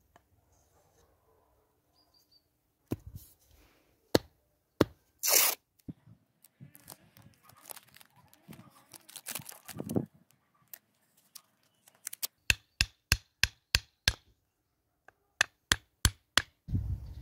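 Masking tape ripped and handled, then a small hammer tapping a wooden wedge into the slotted top of a new axe handle: a run of about seven quick sharp taps, a short pause, then a few more.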